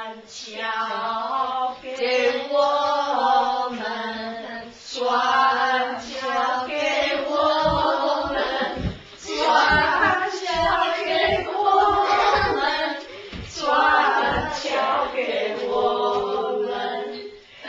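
A small group of voices, a woman and children, singing a song together. A run of low thuds comes about halfway through, as of feet hitting the floor.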